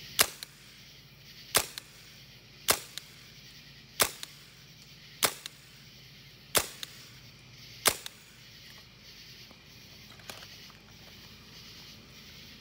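Tippmann M4 airsoft rifle fired single shots through a chronograph: seven sharp shots about a second and a quarter apart, each followed by a fainter click. It is a muzzle-velocity check with .32 g BBs reading around 473 fps.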